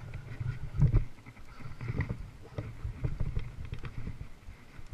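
Water slapping against a small boat's hull, with knocks and bumps from movement in the boat; the loudest thump comes about a second in.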